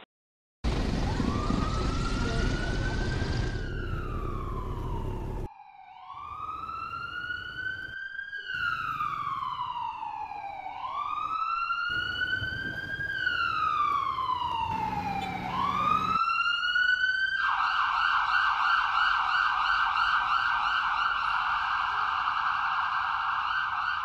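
Emergency vehicle siren wailing, its pitch rising and falling slowly every four to five seconds, then switching to a fast warbling yelp about two-thirds of the way through. A low rumbling noise runs under the first few seconds.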